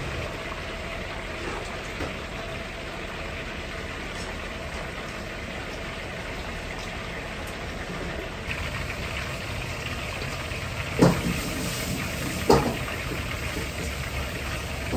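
Battered chicken thigh pieces deep-frying in a wok of hot oil: a steady sizzle that grows louder about eight seconds in as more pieces go into the oil, over a low kitchen rumble. Two sharp knocks come about eleven seconds in and again a second and a half later.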